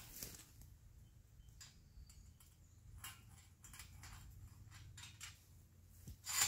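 Faint scattered clicks and light rattles of a metal wire fence panel being handled and lined up with the next panel, with a sharper clink just before the end.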